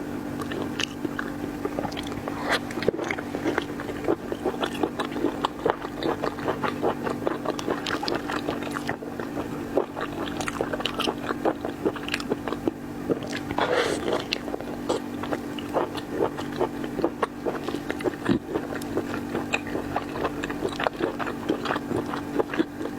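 Close-miked eating of seafood: continuous biting and chewing, many small irregular clicks and smacks, over a steady low hum.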